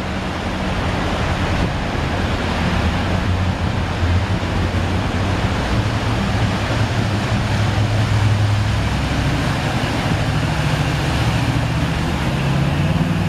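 Pickup truck's engine running as it ploughs through deep floodwater, with a steady rush and splash of water around it. The engine note climbs toward the end.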